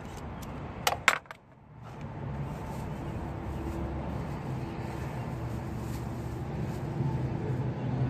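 A few quick metallic clicks from a socket ratchet and extension on a spark plug in the engine bay, followed by a steady low background hum.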